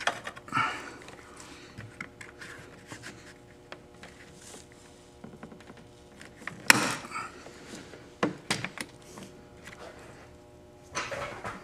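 Scattered plastic clicks, taps and scrapes as a new plastic windshield cowl on a BMW E36 M3 is pressed and worked into place by hand, with one sharp knock about seven seconds in.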